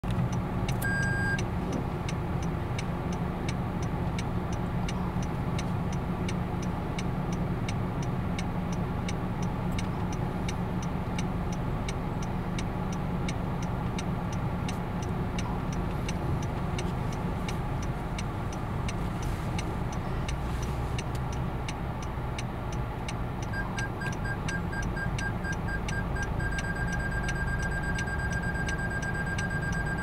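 Honda HR-V cabin with the engine running at a low, steady rumble while reversing, and a steady ticking throughout. Near the end a reversing warning beeps in quick pulses, then holds one continuous tone, the sign of an obstacle close behind.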